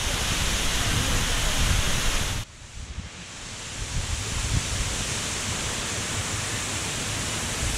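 Waterfall crashing into a rock pool, a dense steady rushing roar. About two and a half seconds in it cuts off suddenly to a much quieter, softer wash of water with a low rumble.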